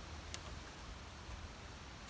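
Quiet outdoor background with one light tick about a third of a second in.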